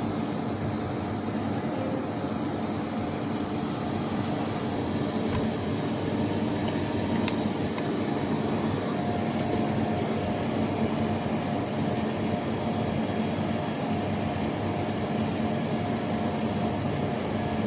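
Steady droning machine hum with a few low held tones, unchanging throughout.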